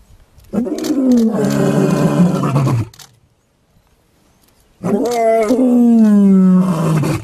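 Male lion roaring twice: two long roars, each falling in pitch, about two seconds apart.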